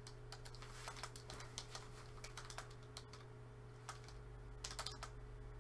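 Typing on a computer keyboard: irregular, fairly light keystrokes, with a quicker run of taps near the end.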